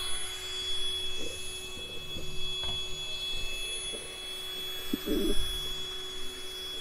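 Footsteps on asphalt with irregular light thumps and wind or handling noise on the microphone, under a faint steady high-pitched tone.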